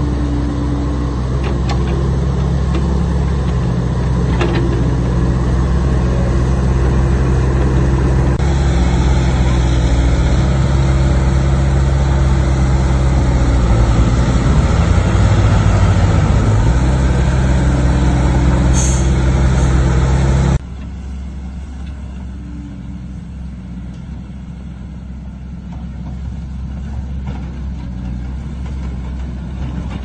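Caterpillar hydraulic excavator's diesel engine running hard under load, pouring black smoke, its pitch rising and wavering for a few seconds, with a short high-pitched squeal shortly before it stops. About two-thirds of the way in the sound drops abruptly to a quieter, steadier diesel engine running further off.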